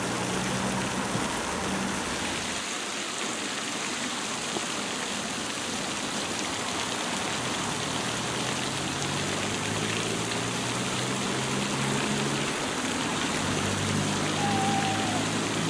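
Steady outdoor background hiss, even and unbroken, with a low hum joining it about halfway through.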